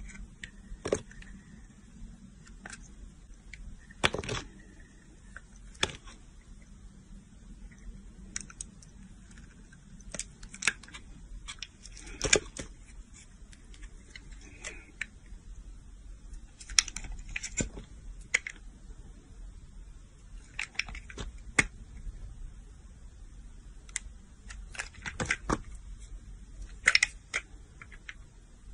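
A blade shaving thin curls off a bar of Pears transparent soap: crisp crackles and snaps at irregular intervals, sometimes several in quick succession.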